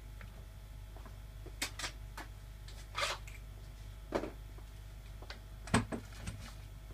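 Scattered clicks and knocks of tools being handled on a workbench, over a steady low hum. The loudest knock comes near the end.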